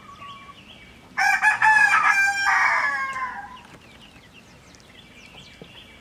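A rooster crows once: a single loud, harsh call of about two seconds, starting about a second in and trailing off.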